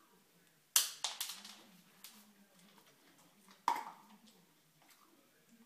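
Sharp knocks on a wooden kitchen cabinet door as a dog bumps a target card on it with its nose, the door rattling against its frame. There are two loud knocks, the first about a second in and the second, with a short ring, past the middle, and a few lighter clicks in between.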